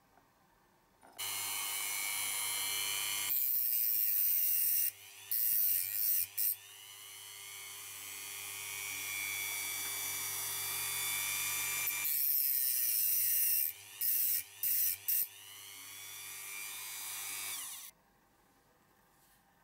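Hand-held rotary tool with a cut-off disc, running at speed. Its motor cuts out briefly twice, each time with a few short blips, and it stops near the end.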